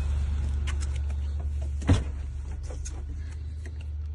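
2018 Nissan Armada's 5.6-litre V8 idling with a steady low hum, just after starting on a newly programmed key. Scattered light clicks run over it, with one sharp thump about two seconds in.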